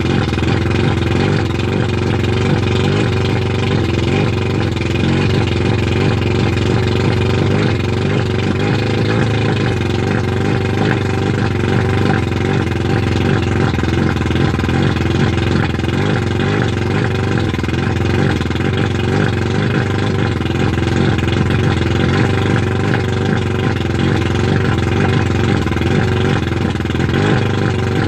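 1989 Mercury 100 two-stroke outboard motor running steadily at a fast idle of roughly 1200–1400 RPM, out of the water with a garden hose supplying cooling water.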